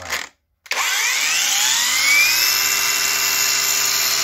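Angle grinder: a short burst cuts off just after the start, then about a second in the grinder is switched on, its whine rising as the disc spins up and then holding steady at full speed.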